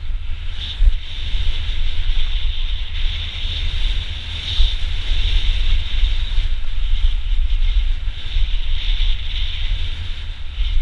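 Wind buffeting the action camera's microphone as a mountain bike rolls down a dry dirt trail, over a steady hiss of tyres on loose dirt and gravel.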